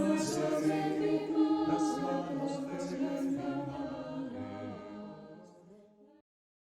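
A choir singing the closing notes of a song, several voices together, fading away and cutting off to silence about six seconds in.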